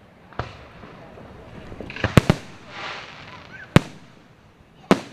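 Aerial fireworks shells bursting overhead: a small bang about half a second in, a quick double bang a little after two seconds, then two loud bangs near four and five seconds in.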